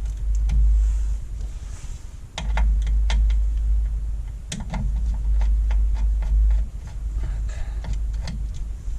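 Small metal clicks and taps of screws and a screwdriver being handled while the four screws holding an LCD panel are taken out, scattered irregularly. Under them is a loud low rumble that comes and goes.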